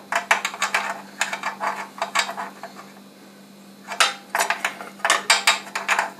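Metal hand tools worked on a small engine: two bursts of rapid metallic clicking and rattling, the second starting about four seconds in.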